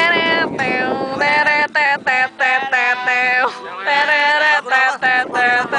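Friends singing an Indonesian pop song along to an acoustic guitar, one voice loud and close with long held notes, phrase after phrase.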